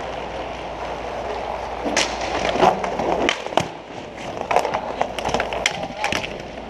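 Inline hockey skate wheels rolling and scraping on a plastic sport-tile rink floor, with a run of sharp clacks of sticks and puck starting about two seconds in.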